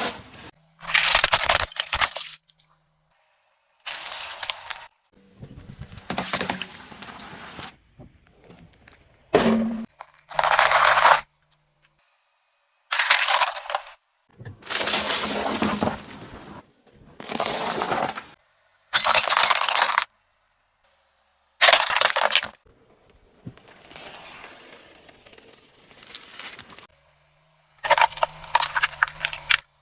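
A string of short cracking and crunching breaks, each about a second long, as objects are crushed under a car's tyre; each one starts and stops abruptly with silent gaps between.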